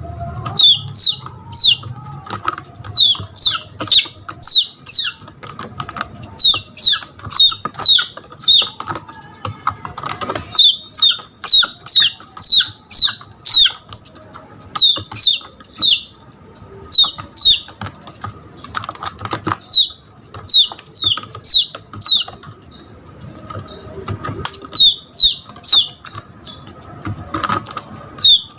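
Red junglefowl chick giving its distress peeps: runs of sharp, high, falling peeps several a second with brief pauses between runs. It is the crying of a lost chick calling for its mother hen.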